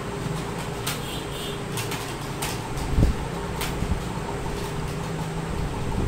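Slow, irregular key presses on a desktop computer keyboard during touch-typing, a few short clicks a second at most, over a steady background hum; one heavier thump about three seconds in.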